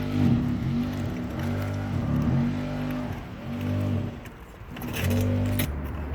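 A motor running in stretches, its pitch rising and falling, dropping away briefly about two thirds of the way through, then settling into a lower steady hum, with a few sharp clicks near the end.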